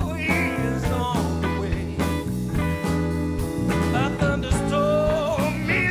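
A blues band playing live, with electric guitar over bass and drums, and melodic lines bending in pitch.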